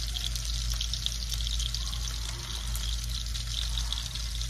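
A pan of half-and-half Alfredo sauce heating on the stove: a steady sizzle with fine crackling, over a low steady hum.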